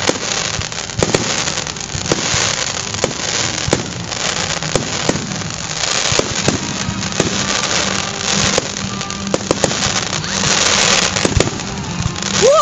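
Aerial fireworks bursting overhead: a steady run of sharp bangs, about one or two a second, with a hissing wash between them.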